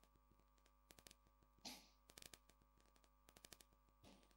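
Near silence: room tone, with a few faint clicks and one soft, short rustle a little under two seconds in.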